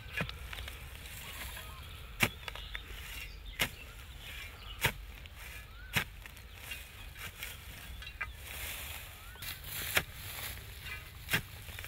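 A long-handled digging tool chopping into dry, grassy soil while a hole is dug out: about seven sharp strikes, a second or two apart.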